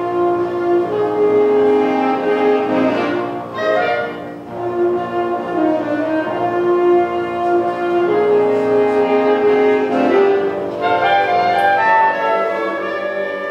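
High school band playing a slow passage of held notes, the chords changing every second or so and moving higher about ten seconds in.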